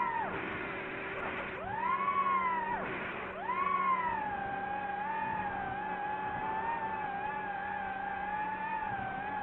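FPV drone's motors and propellers whining steadily, with two quick drops in pitch that swoop back up, about one and a half and three seconds in, each with a brief rush of noise.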